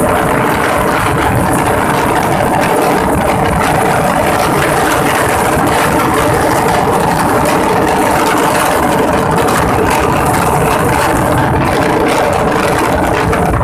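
A vehicle engine running steadily, with a constant hum and a dense even noise that neither rises nor falls.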